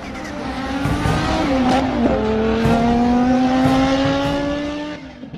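Race car engine sound effect accelerating: the pitch changes at a gear shift about two seconds in, then climbs slowly before fading out near the end.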